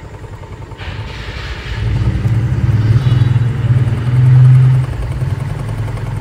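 Motorcycle engine idling steadily, getting louder from about two seconds in and swelling briefly a little past the middle.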